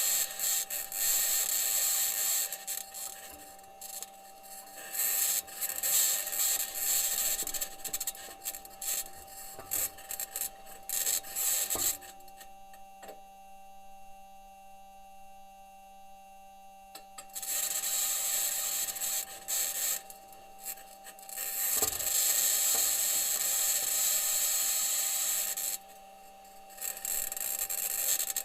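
Perseverance rover's aluminium wheels grinding and scraping over Martian rock and soil while driving, a rasping, crackly noise over a steady electronic hum. About twelve seconds in, the scraping drops away for roughly five seconds, leaving only the hum, then resumes.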